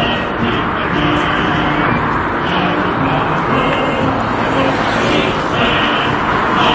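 Steady roar of street traffic with no clear single vehicle standing out.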